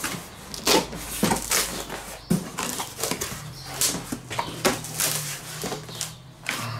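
A cardboard box being slit open with a knife and its flaps pulled back, giving irregular scraping and rustling of cardboard.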